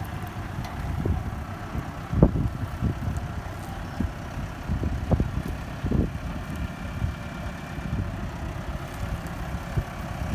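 Başak tractor's diesel engine running steadily as it pulls a corn inter-row cultivator through the field. Irregular low buffeting bursts come and go, the strongest about two seconds in.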